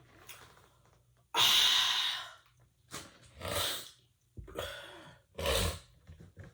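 A person's breathy mouth and nose sounds close to the microphone, several in a row, the first and loudest about a second in.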